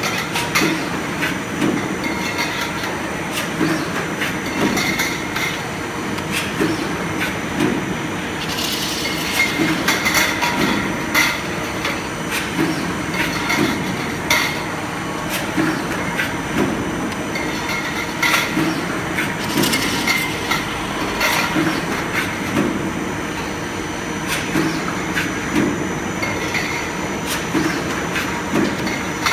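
Double-action mechanical power press running an automatic blank-and-draw line on stainless steel coil: a steady machine din with repeated metallic knocks and clinks.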